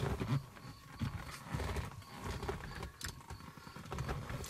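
Irregular knocks and clicks of a hand-held nut driver and screws against the plastic of a car dashboard, with handling rustle, as screws are snugged down by hand.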